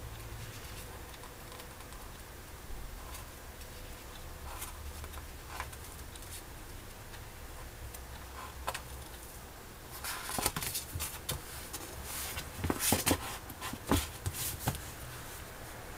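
Paperback book pages being leafed through by hand, with soft page rustles and ticks. About two-thirds of the way in come louder rustles and knocks as the book is closed and handled on a wooden table.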